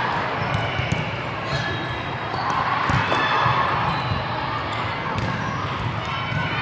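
Busy indoor volleyball hall: a steady din of many voices echoing in the large space, with sharp slaps of balls being hit and bouncing on the courts scattered through it.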